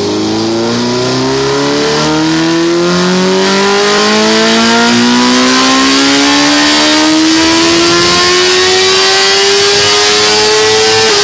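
Sport motorcycle engine at full throttle on a chassis dyno during a power run, its pitch climbing steadily through the revs in a single gear for about eleven seconds before levelling off at the very end. This is a baseline pull, measuring about 118 hp at the rear wheel.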